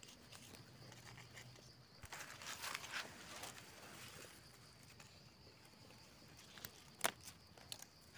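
Faint rustling and crackling of dry leaf litter and twigs as the forest floor is disturbed while a small mushroom is cut out with a knife, with a sharp click about seven seconds in.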